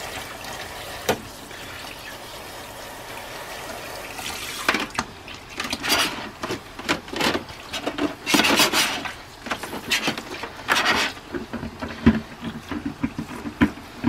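Pull-down faucet sprayer spraying water onto metal-framed mesh air conditioner filters in a stainless steel sink: a steady hiss at first, then uneven spattering surges from about four seconds in as the spray plays over the filters. A couple of sharp knocks come about a second in and near the end.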